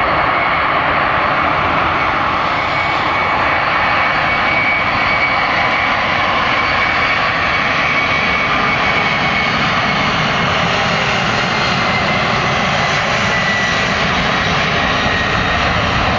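Boeing 767-300ER's jet engines running loud and steady, a dense roar with a faint high whine.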